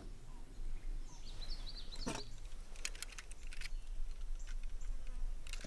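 Small clicks and taps from a toy car being handled, coming in a quick run about three seconds in and again near the end. Birds chirp in the background.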